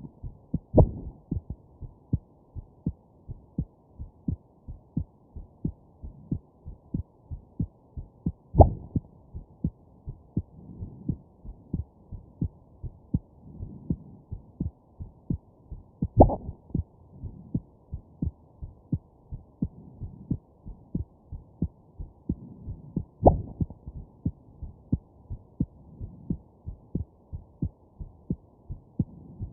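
A person's heartbeat heard up close, with a steady run of soft thumps. Four stronger jolts come about every seven or eight seconds: hiccups.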